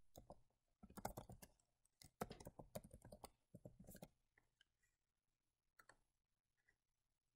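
Faint typing on a computer keyboard: a quick run of keystrokes for about four seconds, then only a few scattered clicks.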